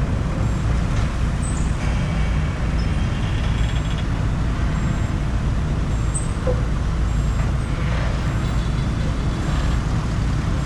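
Excavator's diesel engine running steadily, a constant low rumble.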